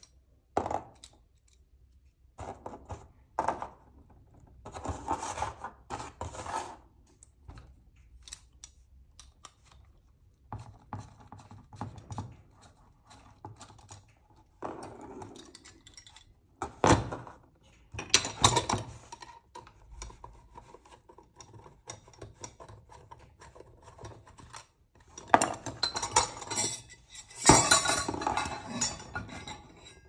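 Aluminium chainrings, steel chainring bolts and an Allen key clinking and rattling as the chainring bolts of a Stronglight crankset are undone and a chainring is lifted off. The clicks come at irregular intervals, with louder bouts of clatter in the middle and near the end.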